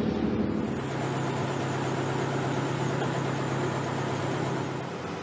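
A boat's engine running steadily, a low hum with a faint noisy wash over it. The hum's pitch shifts about a second in and then holds steady.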